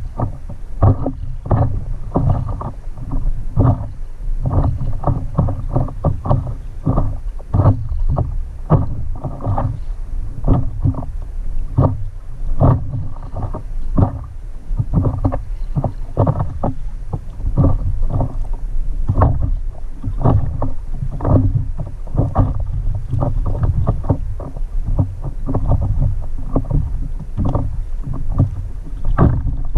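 Water slapping and splashing around a stand-up paddleboard on lightly choppy water, with paddle strokes. A dense, irregular run of small knocks and splashes, several a second, over a low rumble.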